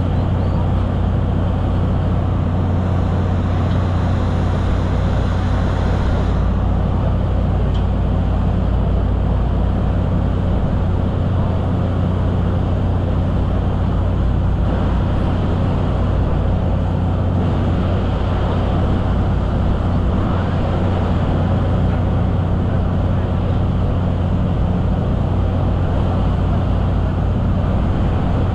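Ferry's engines giving a steady, unchanging low drone, with an even rushing noise over it.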